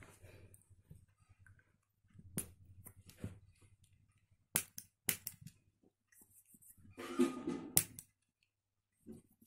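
Several sharp, separate clicks from a lighter's igniter being pressed, with a louder stretch of scuffling handling noise about seven seconds in.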